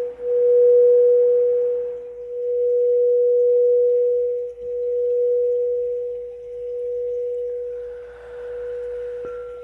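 Singing bowl ringing on one steady tone that swells and dips about every two seconds and slowly dies away. A light tap near the end adds a higher ring.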